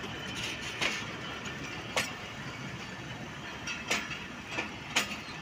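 Passenger train coaches rolling past close by: a steady rumble of steel wheels on the rails, broken by sharp clacks about once a second as wheels cross rail joints.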